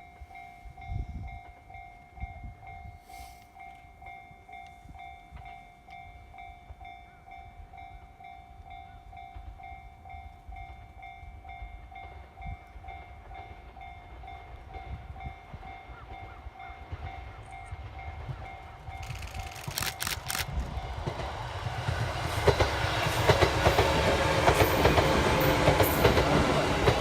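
Japanese level-crossing warning bell ringing in a steady repeating beat. From about twenty seconds in, the rumble and wheel noise of a JR 205-series electric train passing over the crossing builds up, grows loud near the end and covers the bell.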